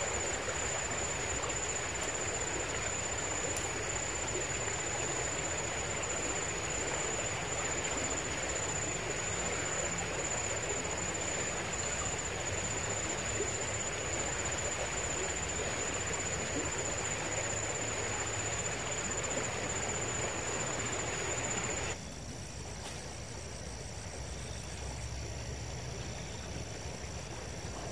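River water flowing over a stony bed, with a steady high-pitched insect call above it. About 22 seconds in, the sound cuts to a quieter take with different high insect tones.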